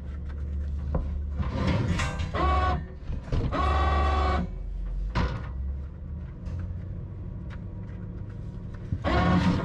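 Heavy perforated steel screen being worked into place inside a wood grinder: metal scraping and ringing clanks as the plate is pushed along its seat, two longer scrapes in the first half and a sharp clank about five seconds in, over a steady low hum.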